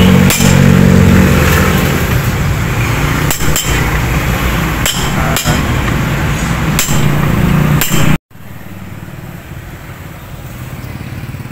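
Sharp, irregular knocks of tools on metal, about seven of them, over a loud steady engine rumble. The sound cuts off abruptly about eight seconds in, leaving a much quieter background.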